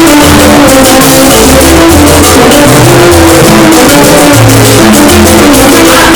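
Loud salsa music with a moving bass line and busy percussion.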